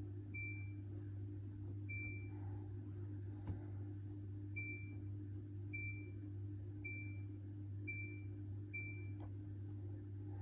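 Hoover H-Wash 600 washing machine's control panel beeping: seven short, high beeps at uneven spacing, as buttons are pressed through its programs and options. A steady low hum runs underneath.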